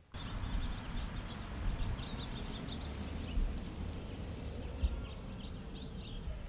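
Birds chirping outdoors: a few quick high calls about two seconds in and again near the end, over a steady low rumble of outdoor background noise.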